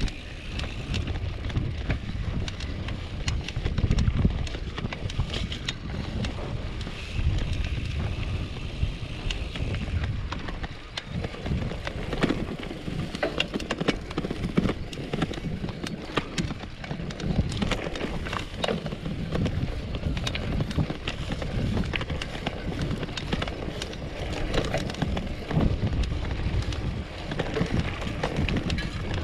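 Polygon Bend R2 gravel bike ridden over a bumpy grass single track: wind buffeting the microphone over tyre rumble, with frequent small rattles and knocks from the bike jolting over the ruts.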